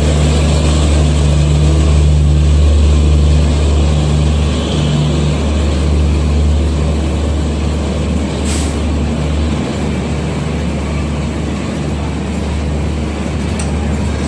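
Departing Duronto Express passing close by at low speed: a deep, steady diesel drone that weakens after the first several seconds, under the continuous rolling rumble of the LHB coaches' wheels on the rails. A sharp click about eight and a half seconds in.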